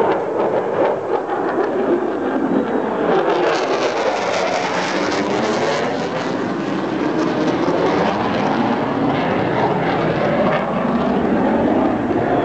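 Jet noise from an F/A-18 Hornet's twin engines in a flyover: a steady rush that turns brighter and hissier from about three to six seconds in, with sweeping tones rising and falling through it as the jet passes, then easing a little toward the end.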